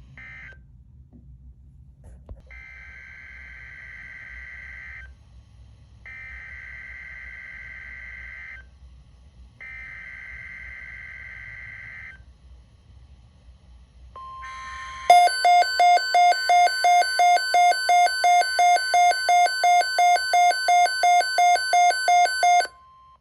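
Emergency Alert System SAME header: three bursts of digital data screech, each about two and a half seconds long, announcing a new alert. It is followed by a steady 1050 Hz NOAA Weather Radio alert tone with a pulsing electronic beep over it, about three beeps a second, that stops abruptly after about eight seconds.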